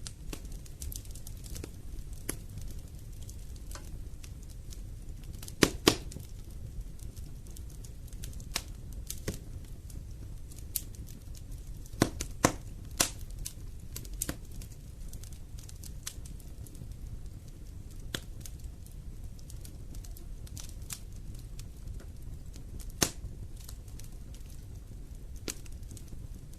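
Wood fire burning in a fireplace: irregular crackling and snapping over a steady low rumble, with a few sharper, louder pops.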